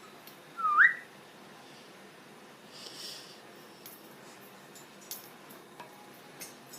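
A pet parrot gives one short whistle rising in pitch, about a second in; after it come only a few faint clicks.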